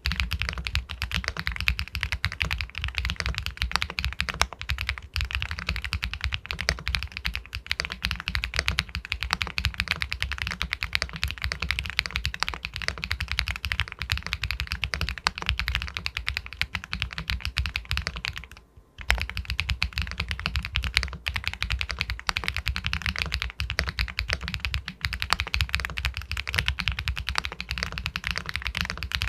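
Fast, continuous typing on an Epomaker Galaxy 80 Pro full-aluminium mechanical keyboard with White Jade linear switches: a pebble-like clacking of key strokes, breaking off briefly about two-thirds of the way through.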